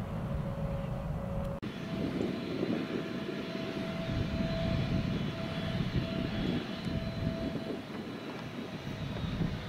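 Airliner engines running: a steady whine over a low rumble. About one and a half seconds in the sound breaks off abruptly and picks up again with the whine slightly higher.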